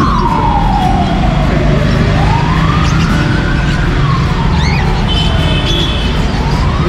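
Emergency vehicle siren wailing, its pitch slowly falling and rising, about one full sweep every three and a half seconds, over a steady low rumble.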